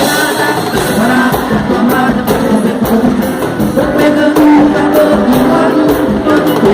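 Upbeat gospel praise music: a band playing with voices singing and a steady drum beat.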